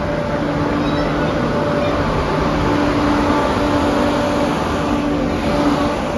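Diesel engines of a Northern Class 170 Turbostar multiple unit running, a steady drone with a low hum that fades in and out.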